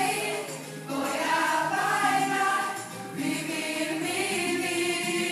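A group of girls singing a song together as a choir, in held phrases with brief pauses under a second in and about three seconds in.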